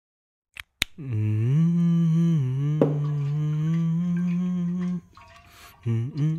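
A man humming a tune, holding and sliding between notes for about four seconds, then starting again near the end after a short pause. Two sharp clicks come just before the humming begins.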